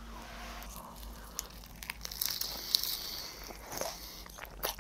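Close-miked bite into a piece of crispy fried chicken wrapped in spicy noodles: scattered crunches and chewing, busiest about two to three seconds in.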